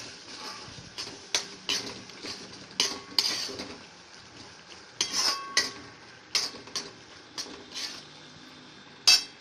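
A metal slotted spoon stirring thick black-eyed pea gravy in a metal pan. It scrapes and clinks against the pan in about fifteen irregular strokes, some ringing briefly, with the loudest clink near the end.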